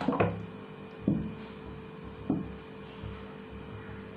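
Steady low electrical hum, with a few soft knocks about a second apart as a plastic bottle of sunflower oil is handled over a frying pan.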